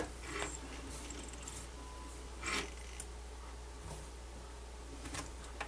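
Quiet room with a steady low hum and a few faint rustles and soft knocks from hands handling an opened MiniDisc deck. A short faint tone sounds about two seconds in.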